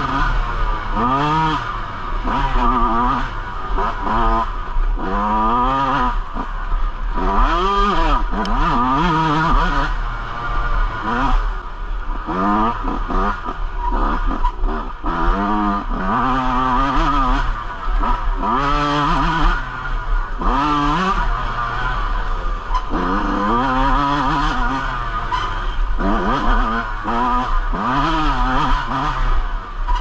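Yamaha YZ125's single-cylinder two-stroke engine under riding load, its pitch climbing and dropping again every second or two as the throttle is opened and closed, over a steady low rumble.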